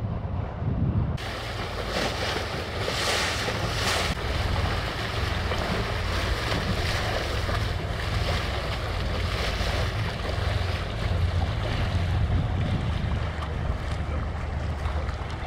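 Diesel engine of a passing laden inland motor cargo ship, a steady low rumble, with the rush of its bow wave and wash along the canal bank. From about a second in, wind buffets the microphone, in gusts strongest a couple of seconds later.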